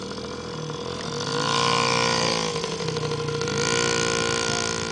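Yamaha PW50 minibike's small two-stroke single-cylinder engine running as it rides past, getting louder about two seconds in, its pitch dipping and then coming back up.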